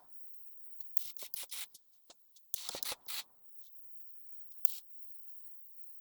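Short bursts of rustling and clicking from parts being handled, in two clusters about a second in and just before the three-second mark, then one more click near five seconds.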